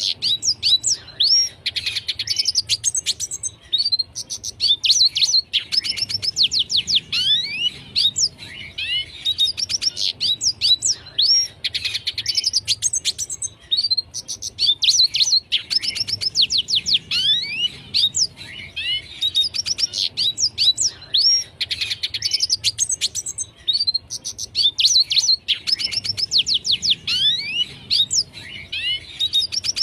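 Red siskin singing a fast, twittering song of quick chirps and trills. The phrases repeat every two to three seconds without a break.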